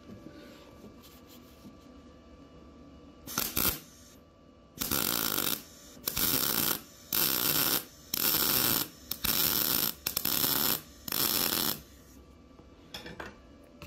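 ArcCaptain MIG 200 welder's arc crackling in a string of short bursts on 1/16-inch mild steel square tubing: one brief burst about three seconds in, then seven bursts of just under a second each with short pauses between. The trigger is pulsed for a series of tack-like stitch welds, so the thin wall doesn't overheat.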